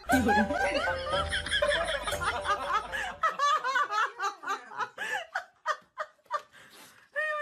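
Laughter in quick short bursts, loudest at first, then thinning out and fading toward the end.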